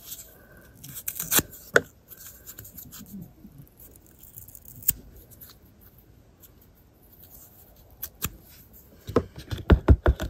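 Cardboard being torn by hand into small pieces: scattered short rips and clicks. Near the end comes a quick run of knocks as the plastic tub and its stirrer are handled.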